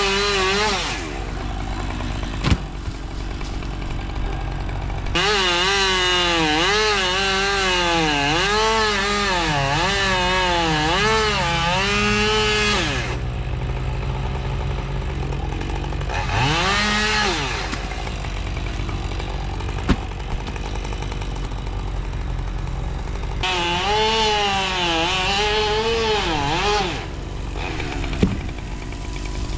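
Chainsaw cutting wood, its pitch dipping and recovering as the chain loads up in the cut. There are two long stretches of heavy cutting, about five seconds in and again near twenty-four seconds, with the saw running lighter between them, and a few sharp knocks.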